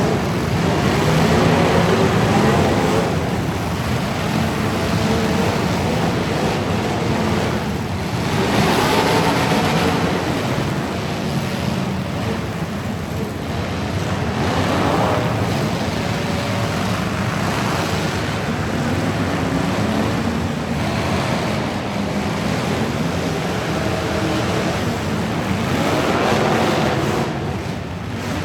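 Truck engines running and swelling louder about every six seconds, over a steady rushing noise like wind on the microphone.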